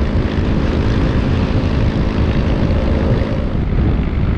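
Motorcycle cruising at steady highway speed: a steady engine drone under heavy wind rush over the microphone. The engine note fades about three and a half seconds in, leaving mostly the wind.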